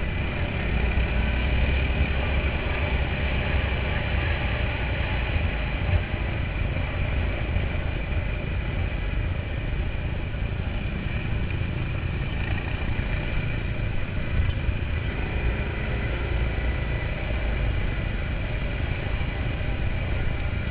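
ATV (quad bike) engine running steadily while the quad rides along a dirt track, heard up close from a camera mounted on its front rack.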